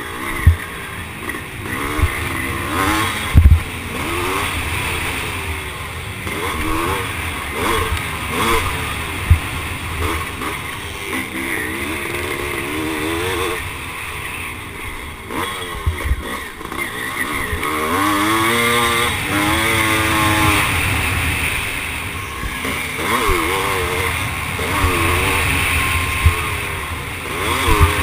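1978 Husqvarna CR390's two-stroke single-cylinder engine, heard from the rider's onboard GoPro, revving up and down over and over as the bike accelerates, shifts and backs off around a motocross track. Several sharp knocks break in along the way.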